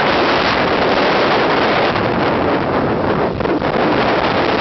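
Storm wind buffeting the microphone over heavy storm surf breaking against a seawall: a loud, steady rush of noise.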